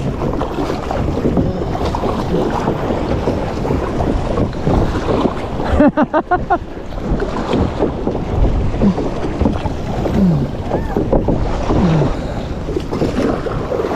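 Wind buffeting the microphone over water sloshing around a plastic sit-on-top kayak as it is paddled through choppy ocean waves, with a brief louder flutter about six seconds in.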